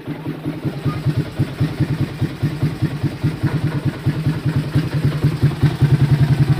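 Yamaha Sniper MX135 single-cylinder four-stroke engine, bored out to 177cc, idling with a steady train of firing pulses that grows a little louder near the end. It has just been brought back to life after four months of sitting unused.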